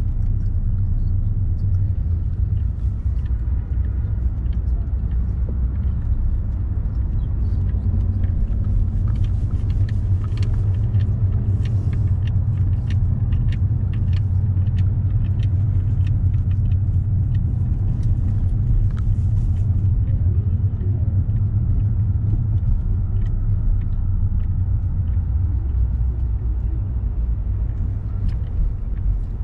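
Steady low rumble of a car driving, engine and road noise, with scattered light clicks through the middle stretch.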